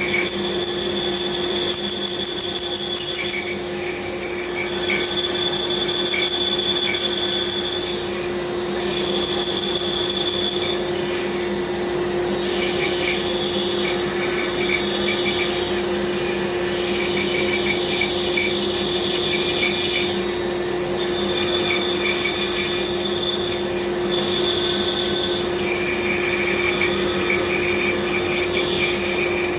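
A woodworking power tool running with a steady motor hum while working wood. A high, rasping cutting or sanding noise comes and goes in passes of a few seconds each, with brief lulls between them.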